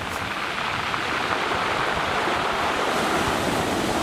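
Sea waves breaking and washing on the shore, swelling to a peak a second or two in, with wind buffeting the microphone.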